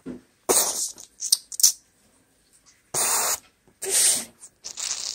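A child making hissing mouth noises in about five short bursts, like play gunfire or explosions for toy soldiers, with a couple of small clicks between them.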